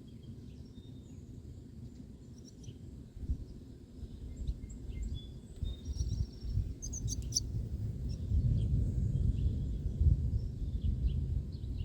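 Gusty wind buffeting the microphone as a low, uneven rumble that grows stronger partway through, with birds chirping.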